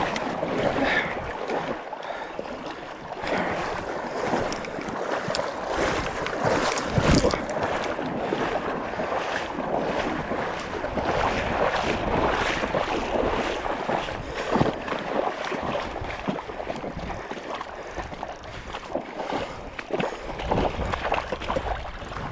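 Steady rush of river water with wind buffeting the microphone, broken by scattered knocks and rattles from handling the fishing rod and spinning reel.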